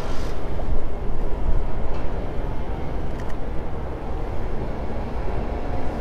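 Strong gusty wind buffeting the microphone: a loud, low rumble that rises and falls, strongest in the first second or so.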